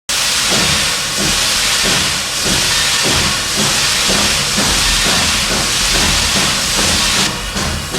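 Steam locomotive hissing loudly with escaping steam, with a low uneven pulsing beneath. The hiss starts suddenly and eases a little near the end.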